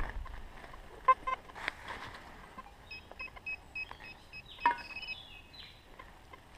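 Metal detector giving short electronic beeps over a target: a couple of tones about a second in, then a quick run of about four beeps a second near the middle and a brief wavering tone after it. A few sharp knocks fall among the beeps.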